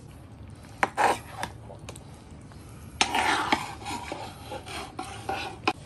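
A metal ladle stirring through chunks of corn, lotus root and yam in a clay casserole pot of broth, scraping and rubbing for a couple of seconds from about halfway. A few light clicks come about a second in.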